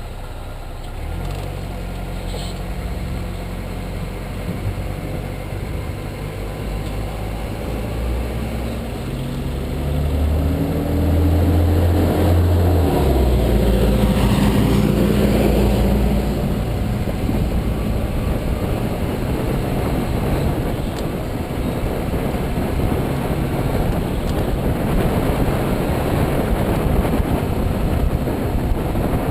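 Car being driven: the engine's pitch rises as it accelerates about ten seconds in, then steady engine, road and tyre noise.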